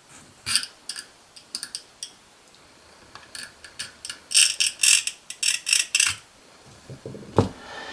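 Small steel fixture parts clicking and scraping against each other as they are handled and slid apart, with a quick run of metallic clicks in the middle and a single dull knock near the end.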